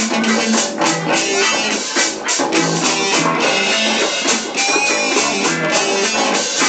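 Reggae music playing loudly, with guitar and drums.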